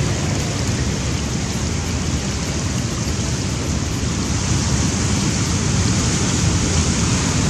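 Rough sea surf washing over a rocky shore: a steady, deep rushing noise of waves with no breaks.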